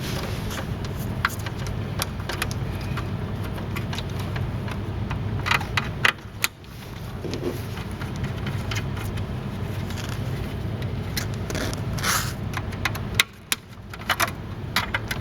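Scattered clicks, scrapes and rattles of metal and plastic parts being handled while an electronic voting machine is taken apart, over a steady low hum. The handling bunches up about a third of the way in and again near the end.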